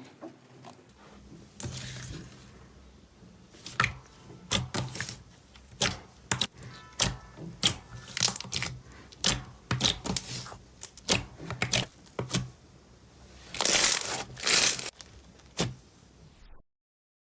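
Slime being squeezed and worked by hand, giving an irregular run of sharp pops and crackles, then two longer, louder squishes about fourteen seconds in. The sound cuts off suddenly near the end.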